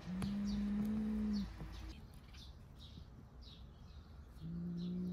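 Two long, low, steady tones, the first lasting about a second and a half at the start and the second starting near the end, with small birds chirping throughout.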